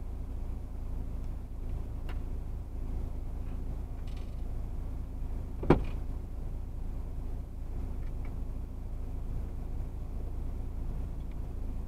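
Steady low engine rumble of a vehicle idling in stopped traffic, heard from inside the cab, with a few faint ticks and one sharp click about halfway through.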